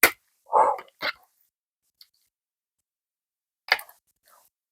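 Doll packaging being handled: a few sharp plastic clicks, with a short, louder noise about half a second in.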